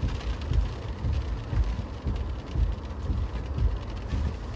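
Gusty wind, heard from inside a car's cabin: a low rumble that swells and drops irregularly, with a faint hiss above it.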